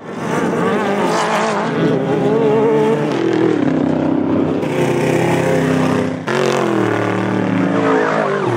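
Off-road desert race vehicle engines running hard, their pitch rising and falling with the throttle. There is an abrupt break about six seconds in, after which a different engine note follows.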